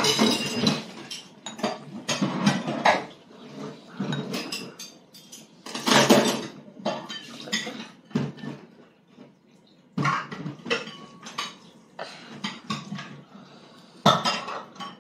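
Tableware clinking and scraping in irregular bursts, utensils against a ceramic bowl, loudest at the start, about six seconds in and near the end.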